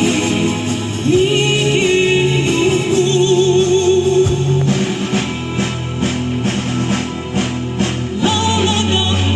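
Live band and orchestral music with singing: a held melody line with vibrato over sustained chords, with steady drum beats through the middle.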